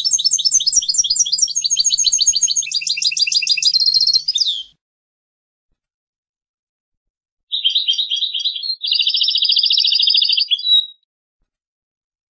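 European goldfinch singing: two phrases of fast, twittering trills, the first about four and a half seconds long, the second starting about seven and a half seconds in and lasting about three and a half seconds, with a pause between.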